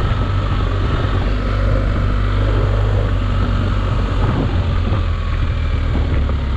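BMW R1250GS boxer-twin engine running steadily at a light cruise on a gravel track, with a steady low engine note under a haze of road and wind noise.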